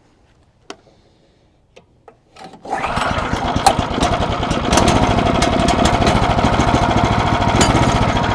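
Sawmill engine starting about two and a half seconds in, after a few faint clicks, then running steadily.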